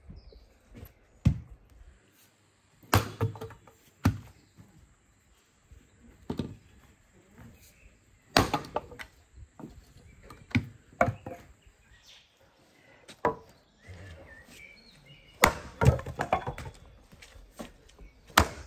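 Axe splitting firewood on a tree-stump chopping block: about a dozen sharp chopping strikes at uneven intervals, some in quick pairs, as the wood cracks apart.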